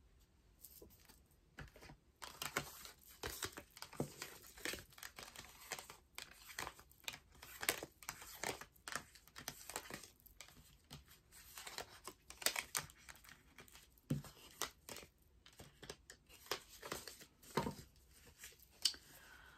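A deck of tarot cards being shuffled by hand: a faint, irregular string of quick flicks and rustles of card stock, with brief pauses.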